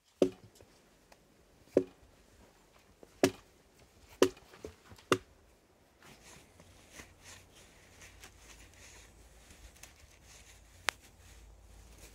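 Hatchet chopping firewood: about six sharp, irregular strikes over the first five seconds. After that only faint low rustling, with a single click near the end.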